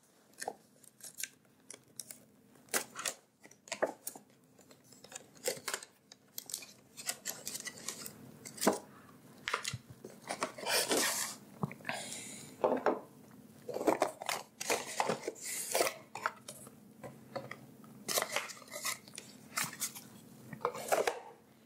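A cardboard trail-camera box being opened and unpacked by hand: scattered clicks, taps and rustles as flaps, inserts and the contents are pulled out and set down on a wooden table, with a longer sliding rustle about eleven seconds in.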